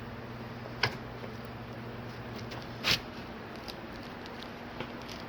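Light handling noises: two short clicks, the second louder, and a few faint ticks, over a steady low electrical hum.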